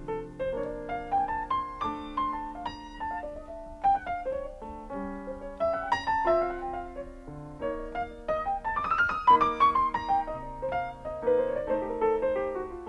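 Piano music: an instrumental passage of a ballad, with runs of notes climbing upward.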